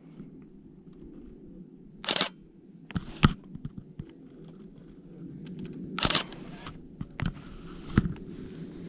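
Camera handling noise: scattered clicks and a few short rustling bursts over a steady low rumble.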